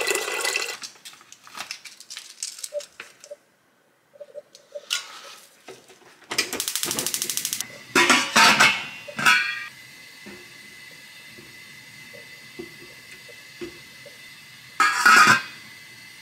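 Water pouring from a filter pitcher into a stainless steel pot tails off at the start. Then the stainless pot, its steamer insert and lid clink and clatter against each other, with a burst of rapid ticking in the middle and a loud clank near the end.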